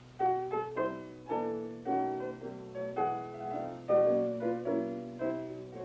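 Piano playing a slow introduction, chords and single notes struck about once or twice a second and left to ring, leading into a blues song.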